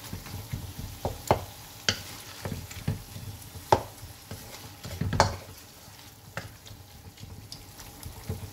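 Slotted wooden spatula stirring and scraping minced beef around a non-stick frying pan, with irregular knocks against the pan, over a soft sizzle of the mince cooking in the water it has released. The strokes come less often in the last few seconds.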